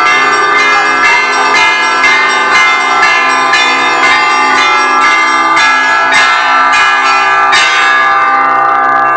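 A set of Russian church bells rung by hand in a fast rhythmic peal: smaller bells struck two to three times a second over a lower bell humming underneath. About seven and a half seconds in the strikes stop and the bells ring on, fading.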